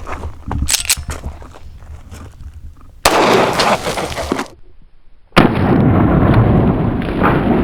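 Light handling clicks, then a sudden loud .380 pistol shot about three seconds in, from a Ruger Security-380 firing a hollow point at a target. The shot rings on for over a second. After a brief dead silence comes a second long, loud burst of noise.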